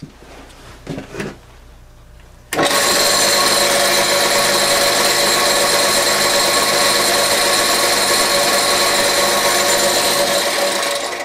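Small wood lathe running with a steady whine while a hand-held sandpaper disc rubs against the spinning pen blank, giving a steady hiss. The sound starts abruptly about two and a half seconds in and fades out just before the end, after a couple of seconds of faint handling sounds.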